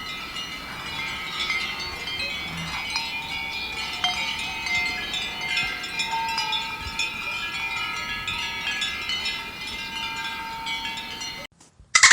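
Tinkling chimes: many overlapping light ringing tones, like wind chimes, that cut off suddenly near the end.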